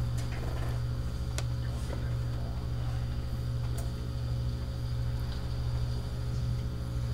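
Steady low hum of room tone, with a few faint clicks and rustles.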